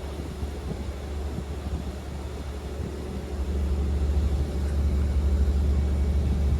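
A river ferry's engine running with a steady low drone, growing louder about three and a half seconds in.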